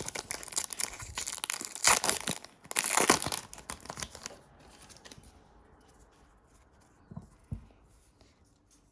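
Trading-card pack wrapper being torn open and crinkled, loudest about two and three seconds in. It then goes quiet, with two soft knocks a little after seven seconds.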